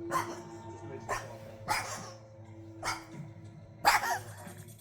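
Burmese cat in a coughing fit: five short, sudden coughs spaced about a second apart, the last the loudest. The owner believes the cough comes from an enlarged heart in congestive heart failure, though it is easily taken for a fur ball or asthma.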